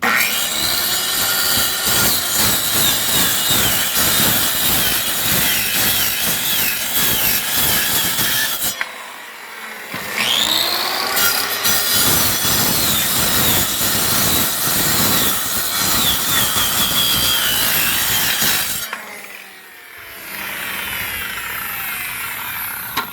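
Electric concrete saw cutting into a concrete slab with water on the cut, a loud grinding whine. It eases off briefly about nine seconds in, spins back up with a rising whine and cuts again, then drops to a quieter run with falling pitch near the end.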